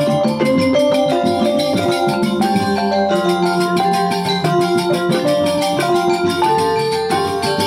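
Instrumental music: a steady, continuous tune of short melodic notes stepping up and down.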